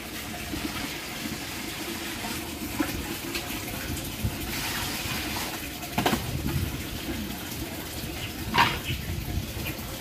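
Water being scooped with a plastic dipper from a bucket and poured and splashed over live loaches in a stainless steel bowl, with two sharper knocks about six and eight and a half seconds in.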